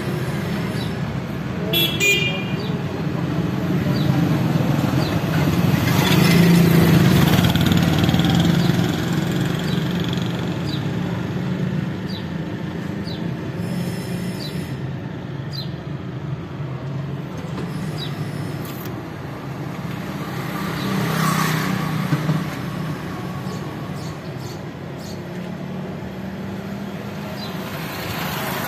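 Road traffic going by, with a brief horn toot about two seconds in. Vehicles pass louder about a quarter of the way through and again about three-quarters through.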